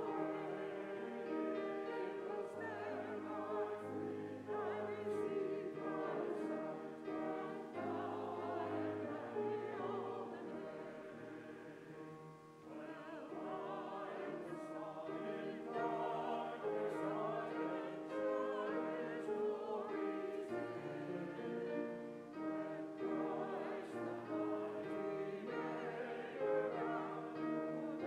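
Choir singing with instrumental accompaniment, in long held notes over a moving bass line.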